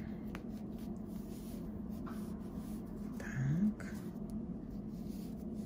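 Faint rustling and scraping of a hand-knitted yarn jumpsuit being pulled onto a vinyl baby doll, over a steady low hum. A brief rising murmured voice sound comes about three and a half seconds in.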